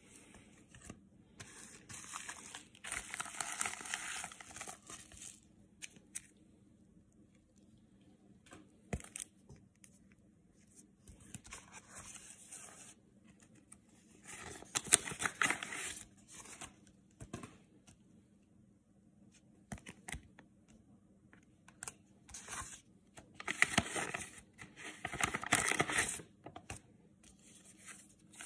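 Paper envelope being handled and opened: paper rustling and tearing in several bursts of a few seconds, with a few small clicks between, the loudest about halfway through and near the end.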